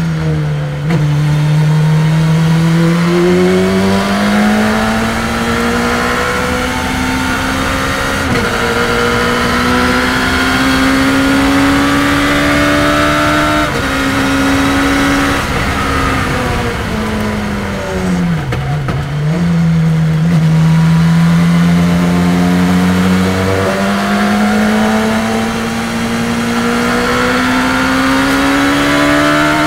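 Open-cockpit sports racing car's engine heard from the cockpit under hard acceleration, its pitch climbing through the revs and stepping at each upshift. About two-thirds of the way through it drops in pitch for braking and downshifts into a corner, then pulls up through the revs again.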